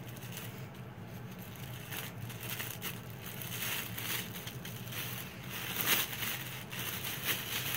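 A thin red plastic biohazard bag crinkling and rustling in irregular crackles as gloved hands handle and fold it around a used wound dressing, loudest about six seconds in.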